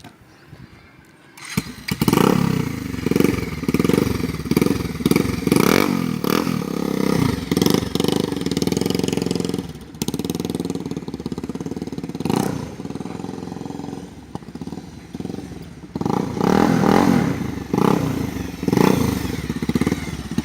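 Modified Bajaj Pulsar 220F single-cylinder engine starting about a second and a half in, then running and being revved over and over in short blips, with a run of stronger revs near the end.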